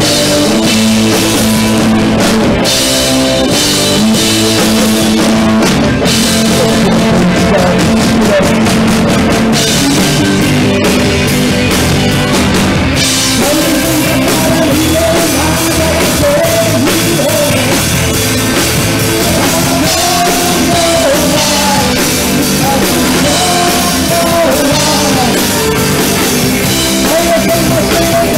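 A live rock band playing loudly: electric guitars and a drum kit, with a singer carrying a wavering melody line over the top.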